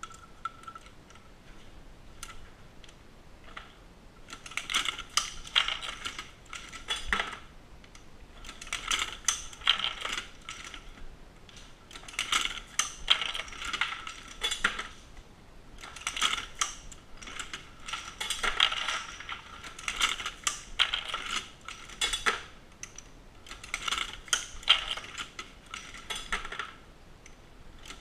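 Dillon SL900 progressive shotshell reloading press worked by hand: from about four seconds in, rounds of metallic clattering and clinking come about every three to four seconds as the handle is cycled, with faint ticks before that.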